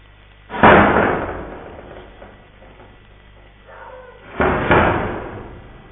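Two loud bangs about four seconds apart, each dying away over a second or so; the second is a quick double hit.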